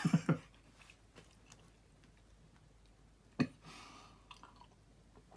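A man sipping a drink from a glass: a sharp click about three and a half seconds in, then a short soft hiss of sipping, over quiet room tone.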